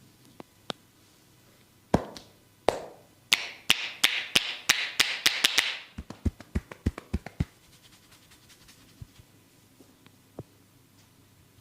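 A barber's hands striking the body during a massage: a series of sharp slaps from about two seconds in, with a rubbing hiss between them, then a quick run of duller pats, about four a second, that fade out after about seven seconds.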